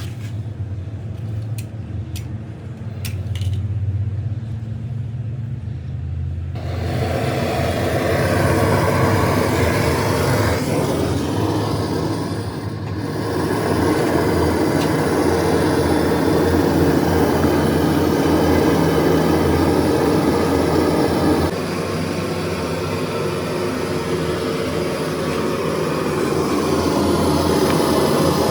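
A large engine running steadily with a low hum. About six seconds in, a loud rushing mechanical noise joins it and continues.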